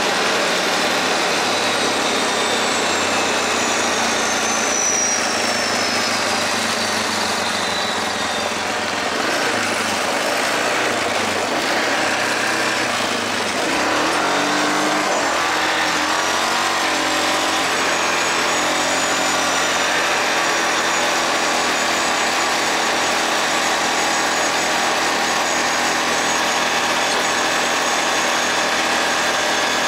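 Yamaha Grizzly 450 quad bike engine running steadily, its revs rising and falling about halfway through. A high whine slowly falls in pitch over the first several seconds.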